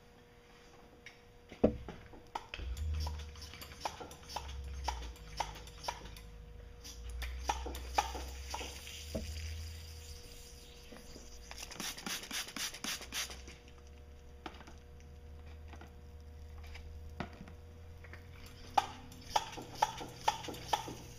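Trigger spray bottle being pumped, squirting soapy water onto the drive shaft seal area of a pressurized Honda 90 hp outboard gearcase in a bubble leak test. It gives repeated sharp clicks, a longer hissing run of sprays about midway and another quick run of clicks near the end. The bubbles this raises trace the leak to the drive shaft seals under the water pump base.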